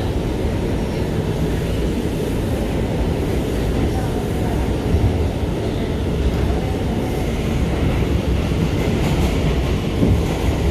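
Steady, loud rumble of an NYC Subway R179 car running at speed on an A express train, heard from inside the car as it travels through the tunnel, with wheels clicking over rail joints and a couple of louder knocks about five and ten seconds in.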